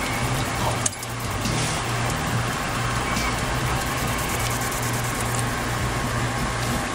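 Steady low hum under a constant rushing noise, with a single click about a second in.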